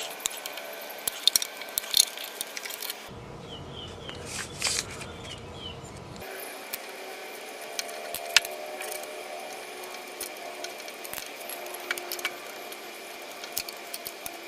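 Scattered metallic clicks and knocks of hand tools: a ratchet wrench working the bolts that hold the electric A/C compressor to a Nissan Leaf drive unit, with one sharper knock about eight seconds in.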